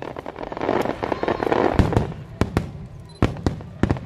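Fireworks display: a rapid run of shell bursts, about ten sharp bangs in four seconds, over a continuous dense crackle that swells in the middle.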